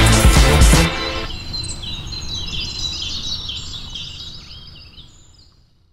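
Rock music cuts off about a second in, leaving several birds chirping and singing over a low rumble. It all fades out near the end.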